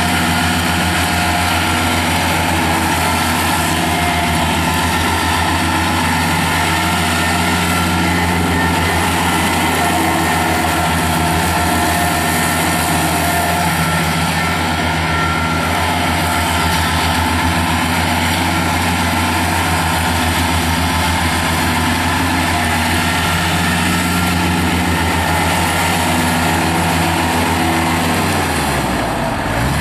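Kubota B2710 compact tractor's three-cylinder diesel running steadily under load as it drives across a lawn with its 72-inch belly mower deck down. The deep engine note briefly falls away just before the end.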